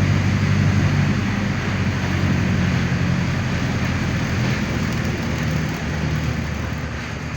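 Mercedes-Benz OF-1519 city bus's four-cylinder diesel engine running under way, heard from inside the cabin over steady road noise. The engine note weakens about halfway through and the whole sound gets gradually quieter toward the end.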